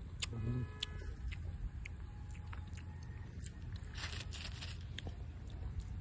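Crunching and chewing as bites are taken from a raw green tamarind pod: scattered sharp crunches, with a denser run of them about four seconds in, over a steady low rumble.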